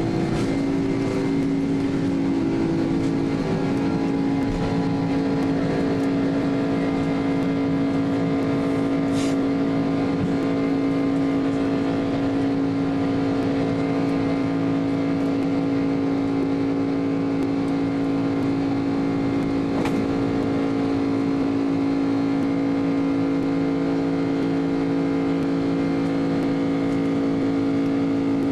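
Cabin noise aboard an Airbus A300-600 airliner on the ground: a steady hum of several held tones from the engines and air systems, with two faint clicks about ten seconds apart.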